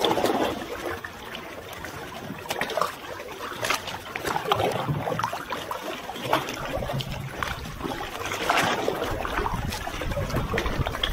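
Sea water splashing and trickling around a paddled sea kayak. Paddle blades dip in with a splash about once a second, over steady lapping water.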